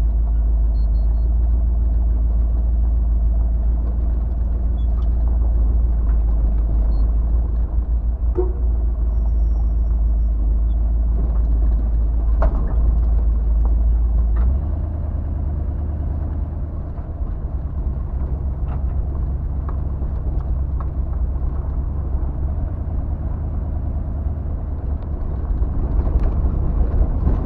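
1977 Jeep Cherokee driving on a gravel road, heard from inside the cab as a steady low engine and road rumble with a few light knocks and rattles. The rumble drops a little about halfway through.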